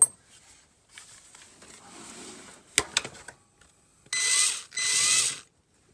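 Electric drill fitted with a carbide burr, run in two short bursts of about half a second each with a high whine. A sharp click comes shortly before.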